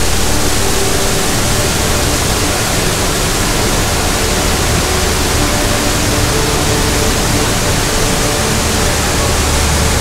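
Mountain stream rushing over rocks close by, a loud, steady, even hiss of water.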